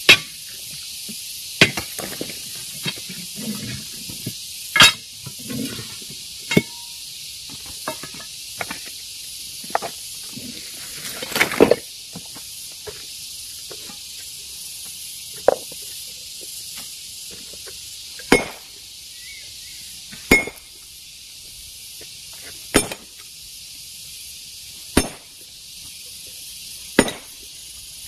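Hammer striking rock to break it: sharp, clinking blows, irregular and mixed with lighter taps at first, then single strokes about every two to three seconds, over a steady high hiss.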